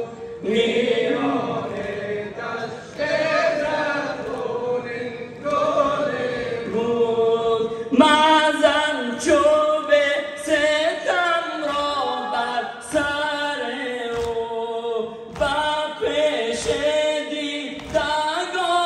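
Crowd of mourners chanting a Persian nauha (Shia Muharram lament) together. About eight seconds in, rhythmic chest-beating (sineh-zani) slaps join the chant, roughly one or two a second.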